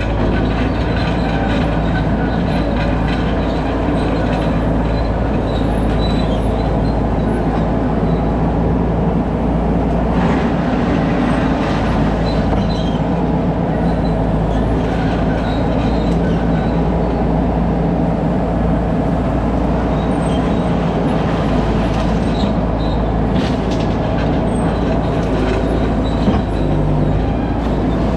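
A 2001 skid steer's engine running steadily and loudly while it works.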